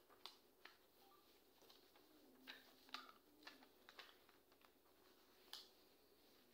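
Paper pages being leafed through: faint, irregular rustles and crinkles of printed sheets over near silence, a few a little louder near the middle and about two-thirds of the way in.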